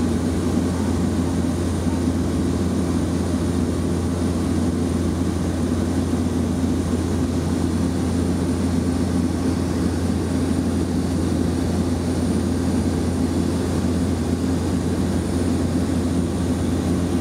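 Steady drone of a propeller aircraft's engines heard from inside the cabin: an unchanging low hum with a faint high whine above it.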